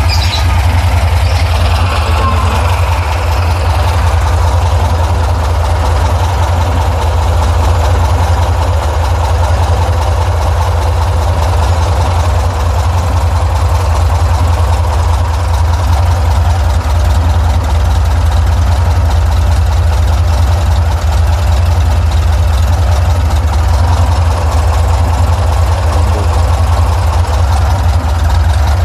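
VW Safari (Type 181) 1600 cc air-cooled flat-four engine idling steadily while it warms up.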